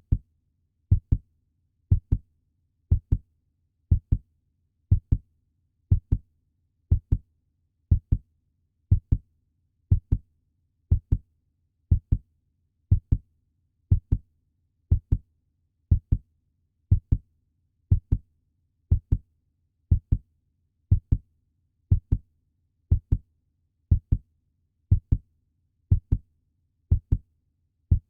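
Puppy heartbeat sound effect: a steady lub-dub double thump, about one pair a second, evenly repeated.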